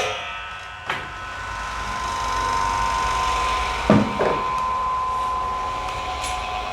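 Wood lathe running with a steady whine, a single click about a second in and a short knock about four seconds in.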